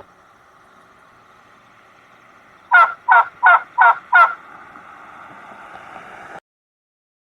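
Turkey gobbling: one rapid burst of five quick gobbling notes over about a second and a half, with faint steady background noise that cuts off abruptly near the end.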